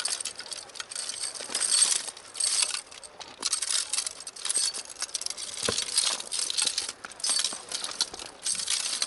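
Steel Maggi Trak snow chains clinking and jangling as they are handled and folded up, an irregular rattle of metal links with short pauses.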